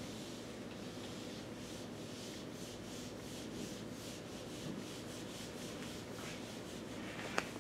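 Felt whiteboard eraser wiped back and forth across a whiteboard in quick repeated strokes, about three a second. A single sharp click near the end.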